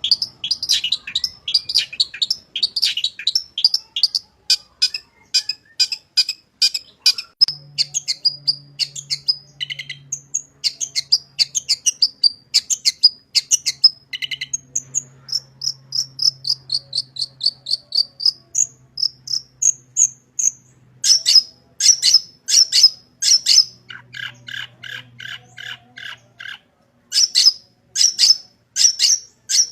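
Long-tailed shrike singing a fast, varied song full of mimicked phrases. It opens with rapid runs of sharp chirps, moves into whistled phrases and a string of falling notes about halfway through, and near the end gives harsh rasping notes repeated in quick series.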